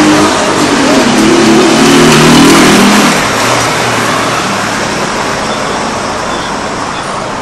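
Motor vehicles driving past close by on a cobblestone street, engine hum and tyre noise. Loudest in the first three seconds, then fading as they move off down the street.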